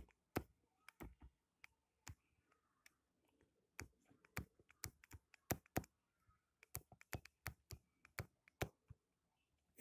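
Stylus tip tapping on a tablet's glass screen while writing by hand: faint, irregular clicks, often several a second, with short gaps between strokes.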